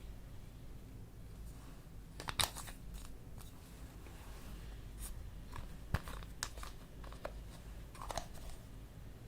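Faint, scattered crinkling and clicking handling noises, a few short crackles here and there, the sharpest about two and a half seconds in, six seconds in and eight seconds in.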